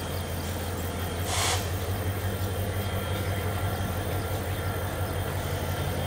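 Two CC 205 diesel-electric locomotives running with a steady low engine drone as they pull a coal train slowly forward. A short hiss comes about a second and a half in.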